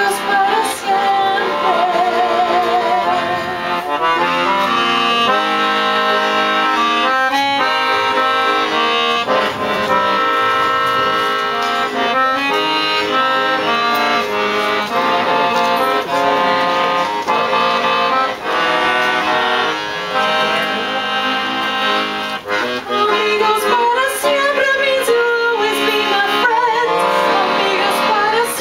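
Accordion music: a melody over held chords, played without a break.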